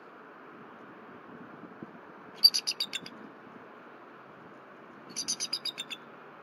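Bald eagle calling in two short bursts of high, chattering notes, each a quick run of about seven piping notes lasting well under a second. The first burst is louder, and the second follows about three seconds later.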